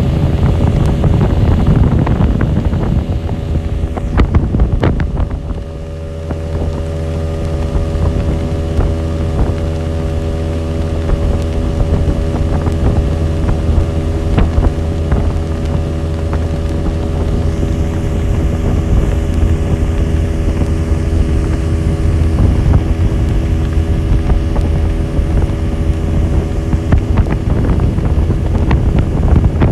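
A 60 hp boat outboard motor runs at a steady speed. Wind buffets the microphone, heaviest near the start and again toward the end.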